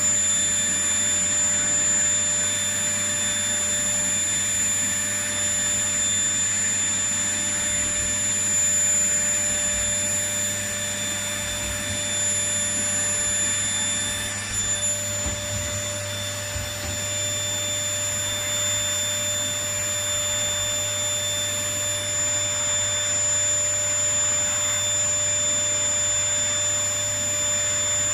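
Vacuum cleaner running steadily: an even rushing hiss with a constant high whine from its motor.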